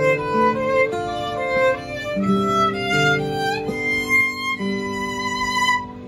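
Bowed violin playing a melody of held, flowing notes over acoustic guitar accompaniment. The playing breaks off shortly before the end.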